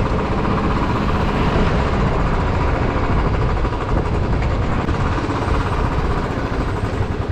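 Royal Enfield motorcycle's engine running steadily as the bike is ridden along the road, with an even rush of road and wind noise.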